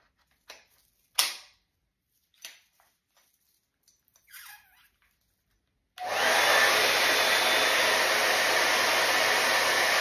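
A few sharp handling clicks and knocks, then about six seconds in a rotating hot-air brush switches on and blows steadily, with a faint high motor whine.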